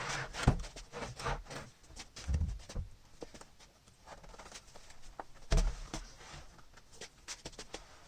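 Handling noise: irregular clicks and knocks, with a few heavier thumps, the loudest a little past the middle.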